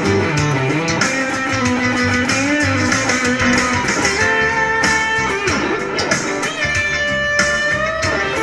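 Electric guitar through a Cornell 1st Fuzz pedal, improvising a lead in A minor: held, sustaining fuzz notes with string bends and slides.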